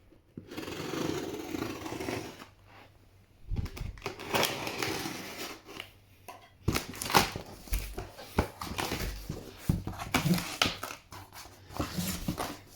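Cardboard boxes and packaging being opened and handled by hand: irregular rustling and scraping with scattered knocks and clicks.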